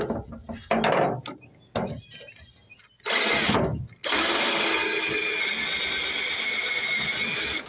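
Cordless drill with a twist bit drilling out the brad pin that holds a shovel handle in its socket. A few short knocks come first, then a short burst of the drill about three seconds in, and the drill runs steadily under load for about three and a half seconds before cutting off near the end.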